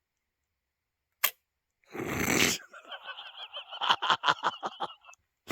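A blackpowder muzzleloader's lock snaps with one sharp click but gives no shot, a misfire. A short hiss and a run of rapid pulsed sounds follow, and there is another click near the end.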